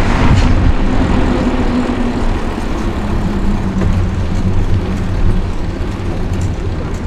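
Steady low rumble of wind on the microphone while cycling, with the faint hum of a motor vehicle's engine.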